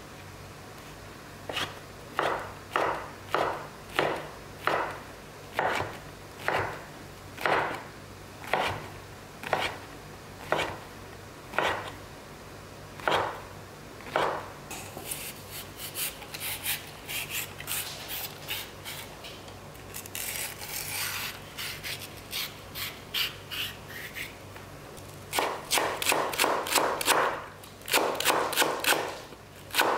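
Chef's knife chopping mushrooms on a wooden cutting board, first in separate strokes about two a second, then in quicker, lighter mincing strokes. Near the end it switches to fast, steady chopping of green onions, which is the loudest part.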